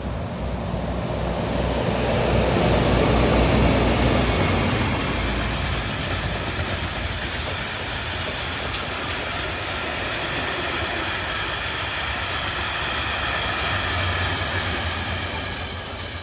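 Train passing on the track: a heavy rumble swells to its loudest about three seconds in, with a high squeal over it that stops about a second later. Then the wheels keep running with a steady rushing noise and a ringing squeal, until it drops off at the end.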